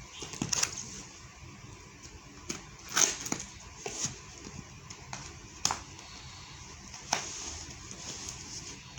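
Packaging being handled and unwrapped: irregular clicks, crackles and rustles, with sharper snaps about three, four, five-and-a-half and seven seconds in.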